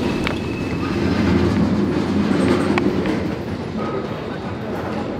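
Freight train running, heard from aboard a covered hopper car: a steady, heavy rumble of wheels and car body with a few sharp metallic clicks.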